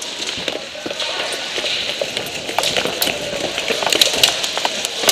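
Rustling and crunching of a player moving quickly through brush and dry ground cover, with many irregular sharp clicks and snaps, thickest about three to four seconds in.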